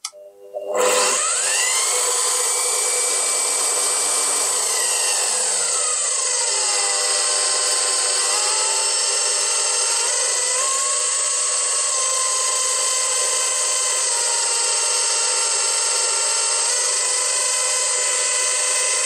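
Bosch PBD 40 drill press motor switched on and running with no load. It spins up with a rising whine about a second in, then its pitch falls over a few seconds as the electronic speed control is turned down toward 800 RPM. Small steps in pitch follow later as the speed is fine-tuned.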